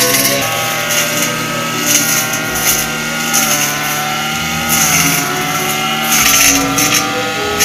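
Two-stroke brush cutter running at high revs while cutting into thick brush and vines, its engine note dipping and recovering under the load, with repeated bursts of hiss as the cutting head strikes the growth.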